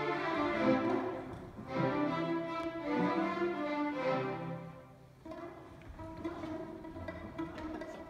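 Youth string orchestra playing sustained bowed chords on violins, cellos and basses, in three loud phrases of about a second each, then dropping to a much softer passage about five seconds in.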